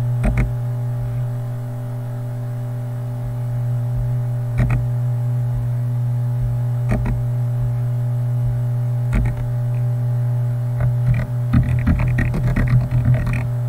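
Steady electrical mains hum with its stacked overtones, broken by a few single computer mouse clicks spread through, then a quick run of keyboard typing near the end.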